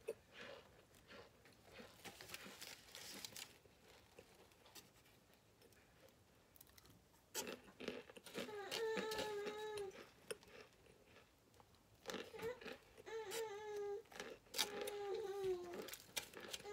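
Cornstarch chunks crunching and aluminium foil crinkling as they are picked out and chewed, with sharp crackles and clicks. Twice, for a couple of seconds each, a steady closed-mouth hummed "mmm" sounds over the chewing.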